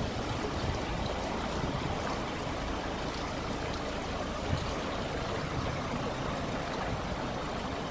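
Steady rush of rainwater running along a flooded street.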